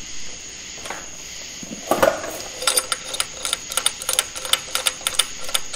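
Metal clank, then a run of quick, irregular clicks and clinks from a harmonic balancer puller as its forcing screw is turned by hand. The screw is being snugged against the crankshaft snout to put a little pressure on the puller.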